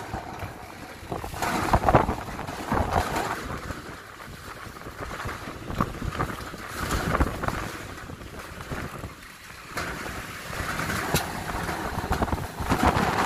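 Sandstorm wind gusting hard, surging every second or two and buffeting the microphone, with a couple of sharp knocks.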